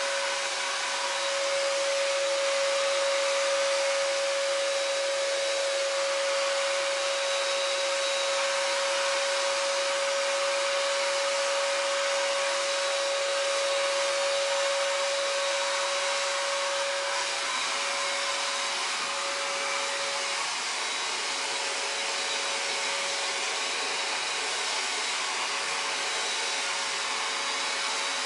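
Patriot SG 550 electric paint sprayer running steadily while spraying emulsion paint: a rush of air from its turbine blower through the hose and spray gun, with a steady whine that fades somewhat about twenty seconds in.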